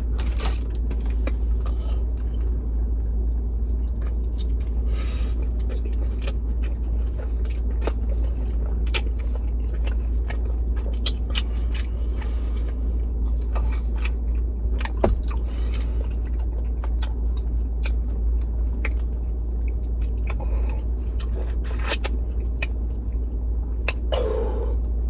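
Close-up chewing and biting into a Subway flatbread sandwich, with wet, scattered short clicks. A steady low rumble of the car runs underneath.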